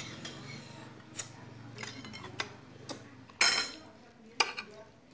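Ceramic plates and cutlery clinking and knocking during a meal: a string of light clinks, with one louder ringing clatter about three and a half seconds in.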